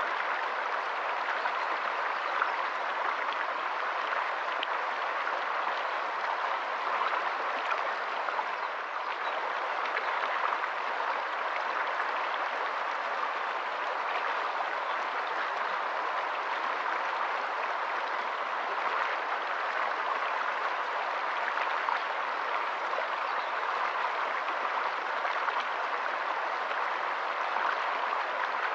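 Shallow stream running over rocks: a steady, even rush of water with no breaks or changes.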